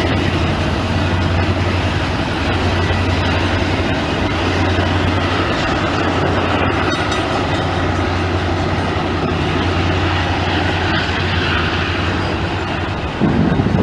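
Freight train rolling slowly along the track: a steady low diesel locomotive drone under the rumble and clatter of railcars on the rails, as one train pushes a stalled train.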